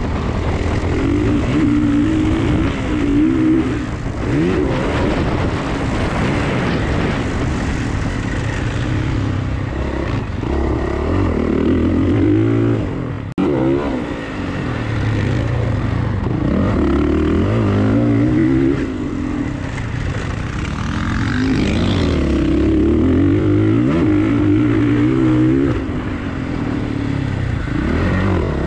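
Motocross dirt bike engine under hard riding, revving up and dropping off over and over as the rider accelerates, shifts and rolls off around the track. The engine sound cuts out sharply for a moment about 13 seconds in, then picks up again.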